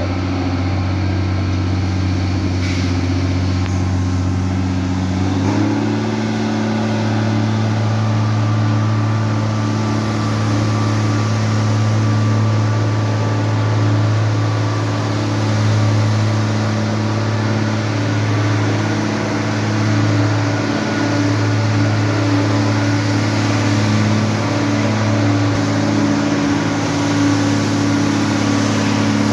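Truck engine running steadily under load, its speed stepping up about five seconds in and then holding.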